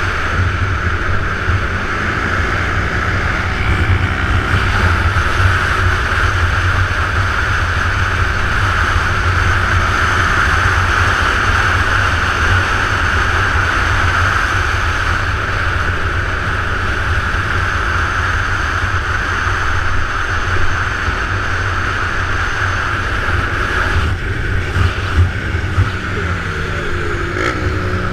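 Onboard riding sound from a motorbike at speed: a steady engine drone under strong wind rush buffeting the camera mic. Near the end, the pitch of another engine rises and falls.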